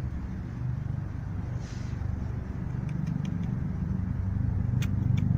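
Low steady rumble of distant road traffic, growing slightly louder toward the end, with a few faint clicks near the end.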